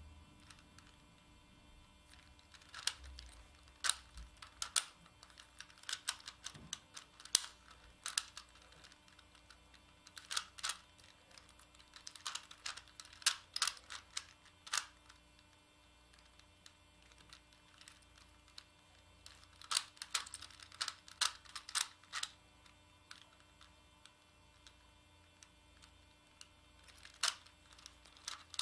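Plastic Megaminx puzzle being turned by hand: quick clicks and clacks of its faces snapping round, in flurries of several turns separated by pauses of a few seconds.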